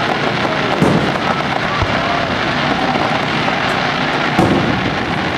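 Aerial fireworks shells bursting, with separate booms about a second in, near two seconds and just after four seconds, over a steady wash of background noise.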